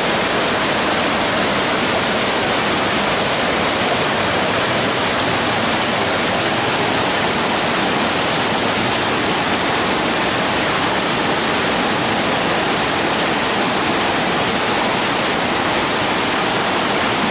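Fast, shallow river water rushing over boulders in white-water rapids: a loud, steady rush of water.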